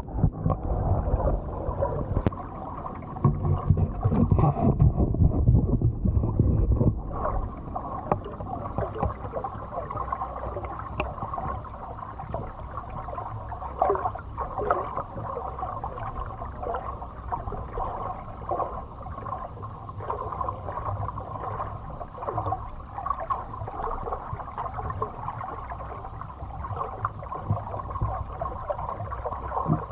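Muffled water sloshing and gurgling, with a heavy low rumble for the first seven seconds or so, then a steadier murmur of water with small scattered splashes.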